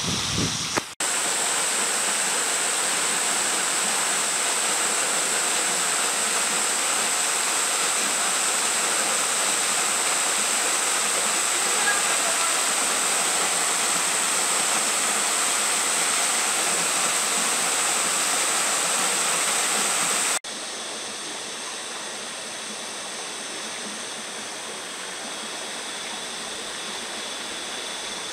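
Small waterfall spilling over a rock ledge into a pool: a steady rush of falling and splashing water. About twenty seconds in the sound cuts off abruptly to a quieter, steady outdoor background with faint high-pitched steady tones.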